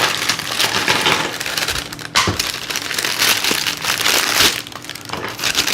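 Plastic packaging crinkling and rustling as toy parts are handled and taken out of their wrapping.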